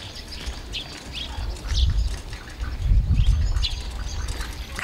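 Small birds chirping in short, scattered calls over a low rumble.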